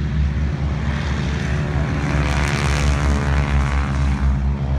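Propeller airplane engine droning loudly as the aircraft flies past, with a rush of sound that swells to a peak about halfway through and then eases.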